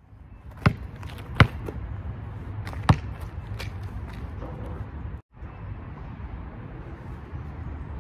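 Basketball bouncing on an outdoor asphalt court: three sharp thumps in the first three seconds and a few fainter ones after, over a steady low outdoor rumble. The sound drops out briefly a little past halfway.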